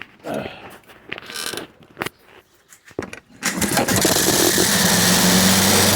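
A lawn mower's small engine catches and starts about halfway through, after a few knocks and rattles, then runs steadily at a loud, even speed. It now runs because the kill-switch cable has been adjusted so the switch no longer touches the flywheel.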